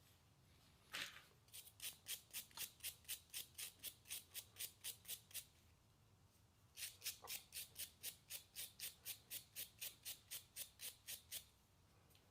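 Hand ratchet clicking in quick, even strokes, about five clicks a second, in two runs of several seconds with a short pause between, as fasteners are run down during carburetor reinstallation.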